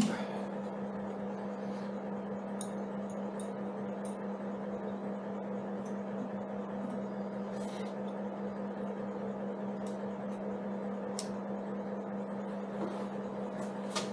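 A steady low hum, like a fan or appliance running in the room, with a sharp click right at the start and scattered faint clicks and taps as small parts and tools are handled.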